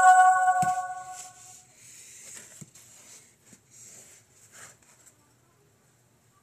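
Texting app message chime, a bright bell-like tone ringing out and fading away over the first second and a half, followed by a few faint soft clicks.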